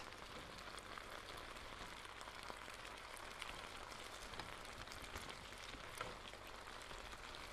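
Stir-fry of chicken and vegetables simmering in a thin sauce in an electric skillet: a faint, steady sizzle with small scattered pops, as a spoon stirs through the food.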